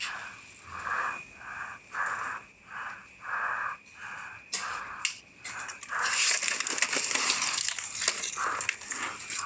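A person breathing hard in quick, even breaths, about one and a half a second, under a thin steady high tone. From about six seconds in, a louder rustling of leaves and branches brushing past joins in.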